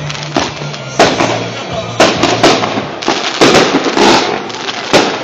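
Fireworks going off: sharp bangs about once a second with crackling in between, over a low steady hum.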